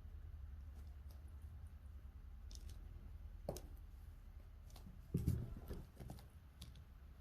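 A cat eating wet cat food in gravy: scattered small wet chewing and licking clicks, with a dull thump a little after five seconds in.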